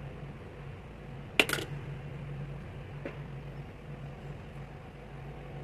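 Small chrome socket from a VEVOR socket set giving a sharp metallic clink about a second and a half in, a quick double strike with a brief ring, then a fainter click about three seconds in. A steady low hum runs underneath.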